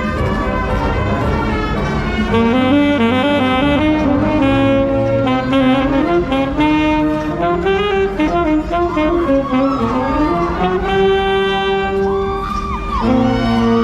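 Wind band playing, with an alto saxophone prominent in a moving melodic line over brass. A long held note comes about two-thirds of the way through, before the line moves on.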